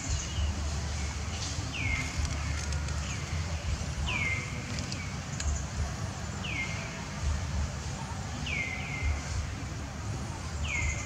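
A bird repeating a short, high call that drops steeply in pitch, every second or two, over a steady low rumble.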